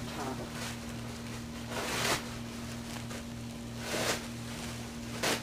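Towels and bedding rustling as a hand moves through them, in four swells about one and a half to two seconds apart, the second the loudest, over a steady low hum.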